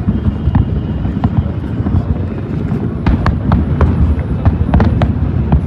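A large aerial fireworks display: shells bursting in quick succession, making a continuous low rumble of booms with many sharp cracks and crackles on top. The cracks come thicker in the second half.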